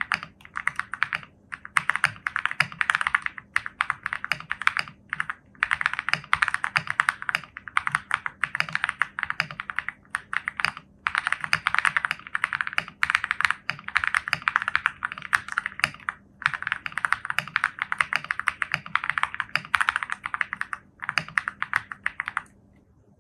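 Fast typing on a mechanical keyboard fitted with stock, unlubricated Akko CS Crystal Silver linear switches: a dense run of light keystroke clacks in bursts with brief pauses, stopping just before the end.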